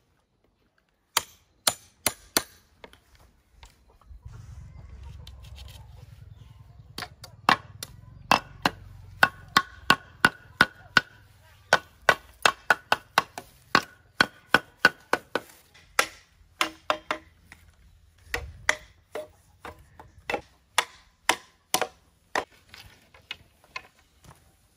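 A blade chopping into wood in quick repeated strikes, about two to three a second, with a few strikes a second in before the run settles in.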